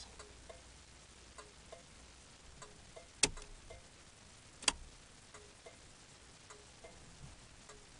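Faint scattered ticks inside a parked car's cabin, with two sharp clicks about a second and a half apart in the middle.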